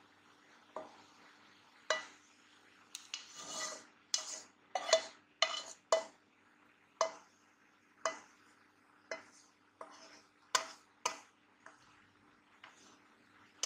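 A spoon clinking and scraping against a cooking pan and glass bowl as thick ketchup is emptied out: a string of sharp clinks, roughly one a second, busiest about three to six seconds in. A faint steady hum runs underneath.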